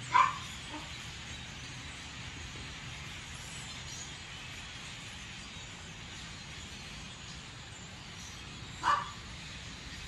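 Two short, loud animal calls, one right at the start and one about nine seconds in, over a steady background hiss.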